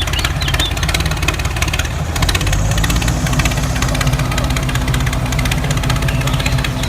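A small motor running steadily and loudly, with a fast, even pulsing and a low hum; a steady higher tone joins about halfway through.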